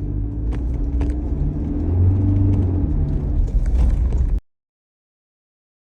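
Car engine and road noise heard from inside the cabin: a steady low rumble with a faint hum, which cuts off abruptly about four seconds in, leaving silence.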